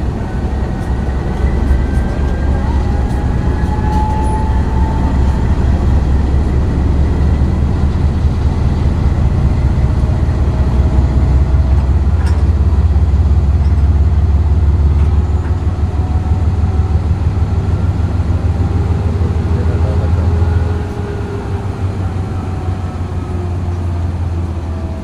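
Pakistan Railways diesel-electric locomotive idling while standing still: a steady, heavy low rumble that drops a little in level near the end.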